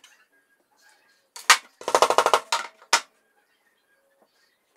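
Diagonal cutting pliers snipping off the excess of a thin wire coil: a sharp metallic snap, then a quick clatter of metal on the tabletop, then another click.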